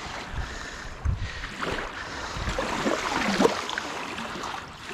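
River water sloshing and splashing around a keep net as hands lift a fish out of it, with a few louder splashes in the middle.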